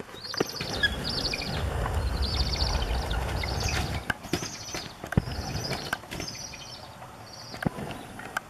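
Bald eagles calling during a territorial fight: a string of about eight high, chittering piping calls, roughly one a second. A low rumble runs under the first half, and there are a few sharp clicks.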